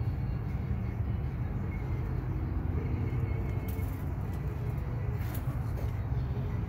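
Steady low outdoor background rumble, with faint short hisses about three and a half and five seconds in.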